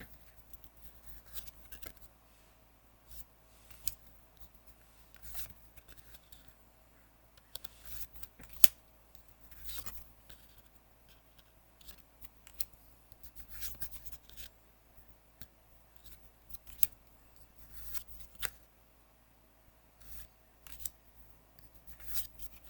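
Magic: The Gathering trading cards being handled by hand: irregular crisp clicks and papery rustles as cards are slid and flicked one after another, with one sharper snap about eight and a half seconds in.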